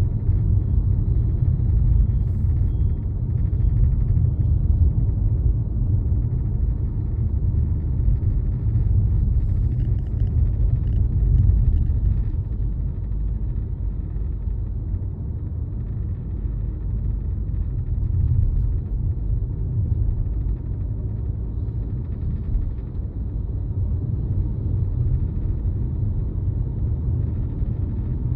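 Steady low road and engine rumble inside the cabin of a new Peugeot 2008 on the move.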